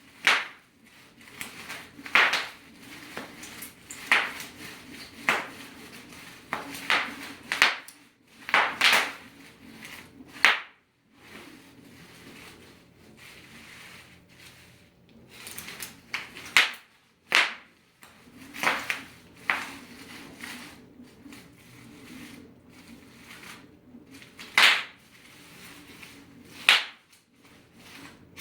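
Bubble wrap popping: sharp single pops at uneven intervals, often a second or two apart, with softer plastic rustling between them and a couple of longer lulls.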